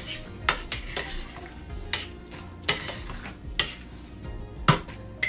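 Spoon stirring hot drained elbow macaroni and butter in a stainless steel saucepan, to melt the butter. The spoon knocks against the pot irregularly, about every second or so.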